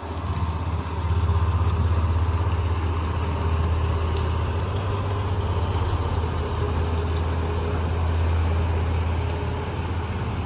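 Tour boat's engine running with a steady low hum, growing louder about a second in as the boat moves off along the lock.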